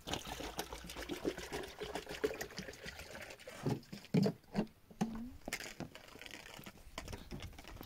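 Hands washing something in water in a metal cooking pot: uneven splashing and trickling with small knocks.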